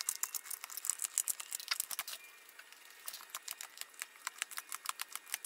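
Staples being pried out of the back of a tractor seat backrest with a hand tool: a run of small, irregular clicks and scrapes, with a short pause about two seconds in.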